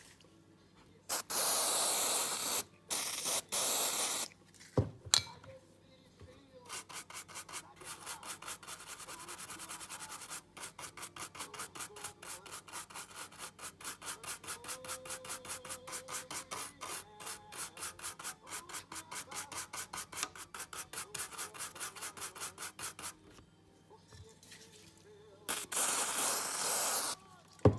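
Rapid back-and-forth scrubbing strokes, several a second, on a hard surface. Short bursts of louder steady hiss come in near the start and again near the end, with a sharp click about five seconds in.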